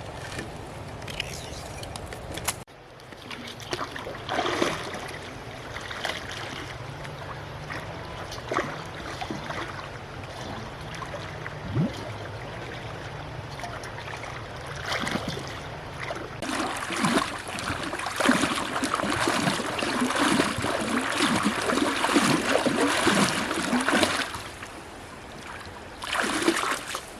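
Shallow water splashing and trickling, with scattered splashes and a dense, louder stretch of splashing and sloshing in the second half.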